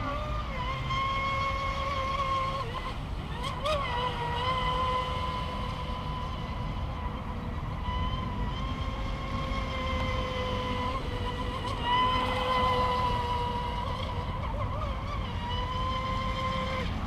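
Wltoys WL916 RC speedboat's brushless motor and propeller running at speed on stock electronics and propeller: a steady whine that wavers and dips briefly a few times as the throttle changes, around three, twelve and fifteen seconds in.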